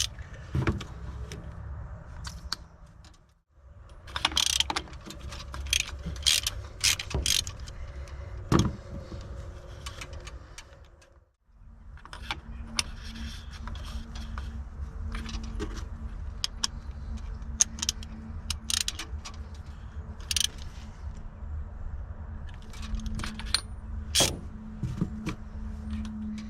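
Socket ratchet clicking and metal clinks of tools and spark plugs as the plugs are taken out of and fitted into the cylinder head of a four-cylinder engine. It comes in three stretches, broken twice by brief silences, over a steady low hum.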